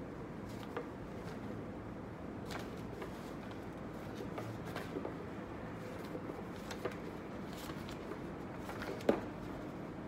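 Paper envelopes being handled and sorted from a stack: soft rustles and light taps of paper, with one sharper tap about a second before the end, over steady low background noise.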